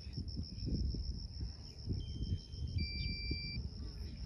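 An insect chirring steadily at a high pitch, over an irregular low rumble of wind or handling noise on the microphone.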